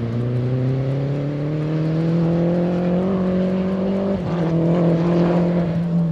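Mini Cooper race car's engine under acceleration, its pitch climbing steadily. About four seconds in the note breaks briefly and drops, like a gear change, then it runs on at steady revs.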